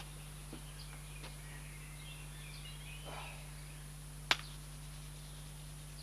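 Quiet outdoor background over a steady low hum, with a few faint bird chirps and one sharp click about four seconds in.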